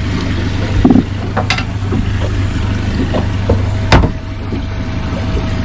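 Boat engine idling with a steady low hum. A few sharp knocks and bumps on the boat cut across it, the loudest about four seconds in.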